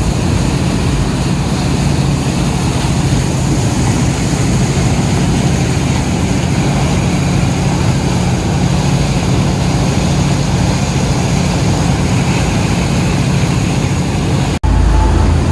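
Sea Ray 360 Sundancer cruiser's inboard engines running steadily under way, a low even drone, over the rush of the churning wake.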